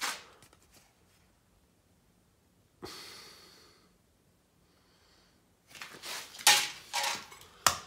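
A single sharp exhale about three seconds in, then a run of sharp knocks and clinks near the end as pieces of sterling silver scrap are handled.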